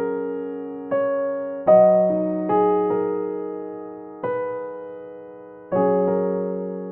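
Background music: slow, gentle piano, single notes and chords struck every second or two and left to ring and fade.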